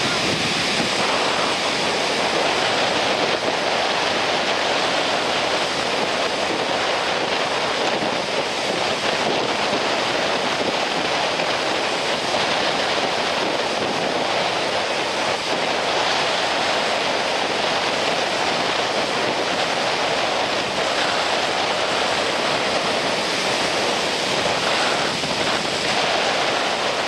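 Rough, storm-driven sea surf breaking and washing up the sandy beach in a steady, unbroken rush, with wind blowing on the microphone.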